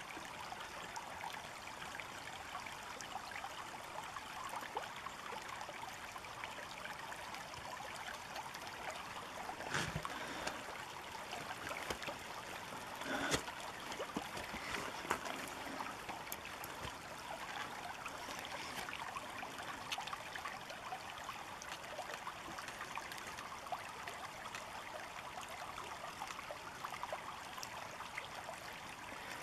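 River water flowing and trickling steadily, with a couple of brief clicks about ten and thirteen seconds in.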